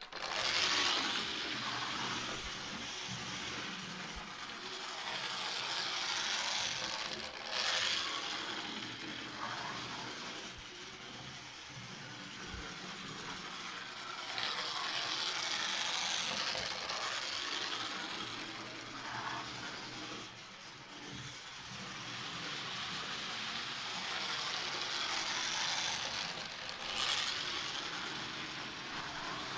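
Model railway train, a tank locomotive pulling armoured cars, running on the layout's track: a steady noise of wheels and motor that swells and fades several times as the train comes near and moves away. There is a short sharp click about a quarter of the way in and another near the end.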